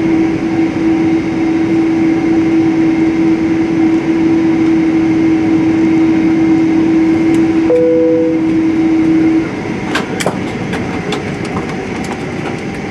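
Airliner cabin noise in a parked Boeing 767-300ER: a steady rumble with a constant hum that cuts off suddenly about nine and a half seconds in, just after a brief higher tone. The cabin is quieter afterwards, with scattered sharp clicks.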